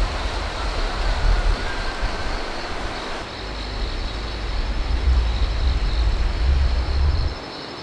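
Wind buffeting the microphone: a loud, uneven deep rumble that cuts off shortly before the end. A faint, steady high hum joins about three seconds in.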